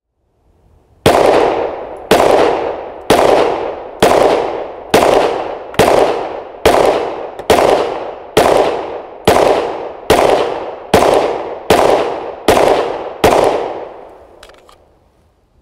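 Sig Sauer M17 9mm service pistol firing a slow, steady string of about fifteen shots, a little under one a second, each trailing off in an echo.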